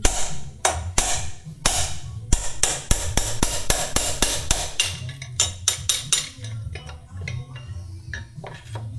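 Hammer blows on a headset cup-removal tool, driving the old headset bearing cup out of a mountain bike's head tube: a few spaced strikes, then a quick run of about four a second, then lighter taps. The bearing being knocked out is seized and worn out, the cause of the bike's creak.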